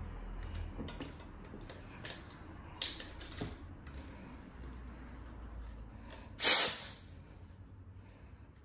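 Compressed air hissing in short bursts from an air chuck at the valve of a TuBliss inner core as it is pumped up towards 100–110 PSI. The loudest burst, about half a second long, comes about six and a half seconds in, over a faint low hum.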